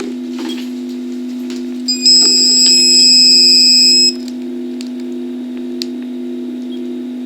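A handheld radiation meter's electronic alarm buzzer sounds one steady high beep for about two seconds, starting about two seconds in and cutting off sharply, which the owner takes for a high gamma-ray reading. A constant low electrical hum underlies it throughout.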